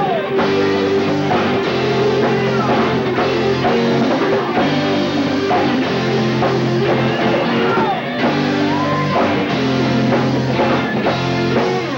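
Rock band playing live, heard on a mini-cassette recording with a dull top end: electric guitar bending lead notes over held chords, with bass and drum kit.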